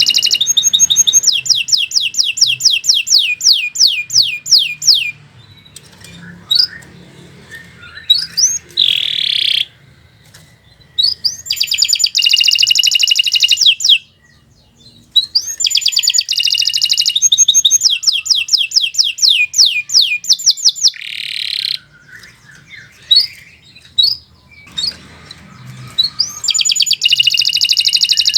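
Domestic canary singing loudly in long phrases of fast repeated notes and rolling trills, each lasting several seconds, separated by short pauses, with a buzzy note in two of the pauses.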